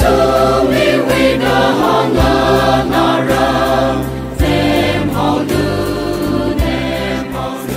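A group of voices singing a slow hymn together in chorus.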